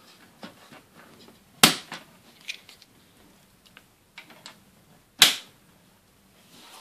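Hard plastic Playmobil trim pieces being snapped onto a toy fire station's frame: two sharp clicks, one about a second and a half in and one about five seconds in, with light plastic handling clicks between.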